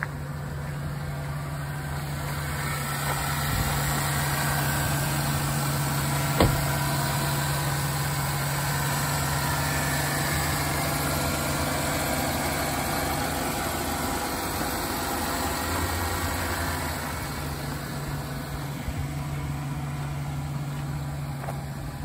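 The 2009 Chevrolet Silverado 1500's engine idling steadily with the hood open. A single sharp click sounds about six seconds in.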